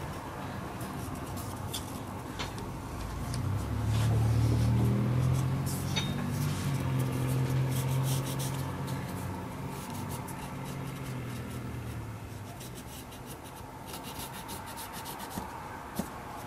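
Pencil scratching and rubbing on wood as it traces around a paper template, in many small strokes. A low steady hum runs under it and is loudest from about three to twelve seconds in.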